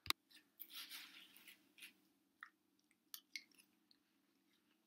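Faint wet chewing of a mouthful of juicy watermelon eaten with a spoon, with scattered soft smacks and clicks, after one sharp click at the very start.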